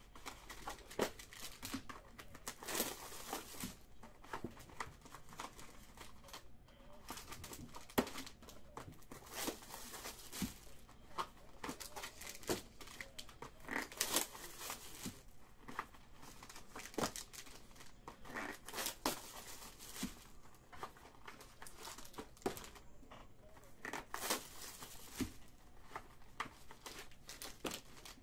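Foil-wrapped trading card packs crinkling and tearing as they are handled, in a run of irregular rustles and rips.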